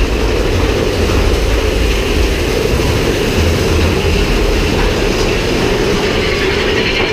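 Big Thunder Mountain Railroad mine-train roller coaster running along its track: a steady, loud rumble of wheels on rail.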